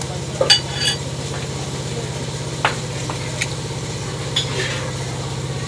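Eggs being cracked on the rim of a glass bowl: a few sharp taps, the first about half a second in with a brief glassy ring. A steady low engine hum runs underneath.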